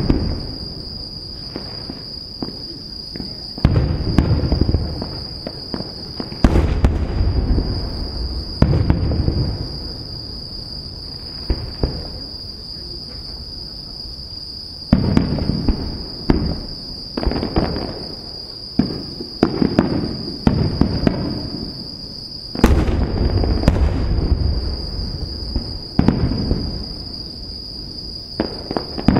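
Aerial firework shells bursting overhead: a string of deep booms, some a few seconds apart and some in quick clusters, each trailing off in a rumble. A steady high-pitched insect trill runs underneath.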